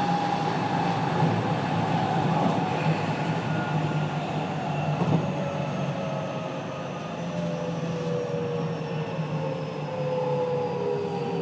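Inside a JR 207 series 1000 subseries car with Toshiba GTO inverters, heard over steady rolling rumble: the inverter's whine glides slowly down in pitch as several tones. One of the car's two inverters is out of step in its modulation, so its tone sits just beside the normal one's and the pair harmonize into an unusual sound.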